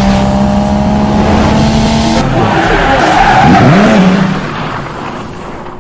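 Loud car sounds, an engine with tyres skidding, that change abruptly a little over two seconds in and fade away near the end.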